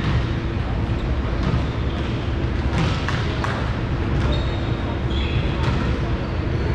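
Steady ambient noise of a large gymnasium hall during a volleyball match, with a low hum. Scattered sharp knocks ring through it, and a few short high squeaks come a little past the middle.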